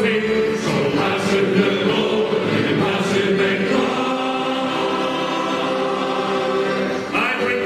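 Male choir singing together, holding long notes through the middle and starting a new, louder phrase about seven seconds in.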